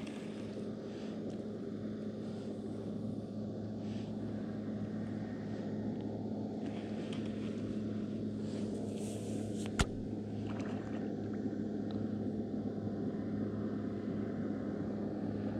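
Bass boat's outboard motor running at a steady speed, a constant drone that grows slightly louder, with one sharp click about ten seconds in.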